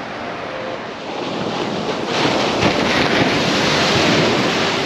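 Ocean surf breaking on a sandy beach, swelling louder about two seconds in as a wave crashes close by, with wind buffeting the microphone.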